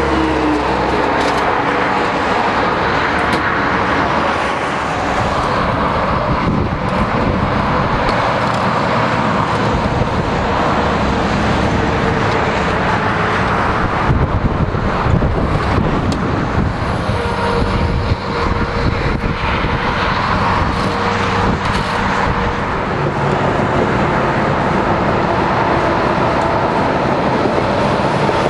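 Steady, loud interstate traffic passing close by: cars and heavy trucks, tyre and engine noise running on without a break.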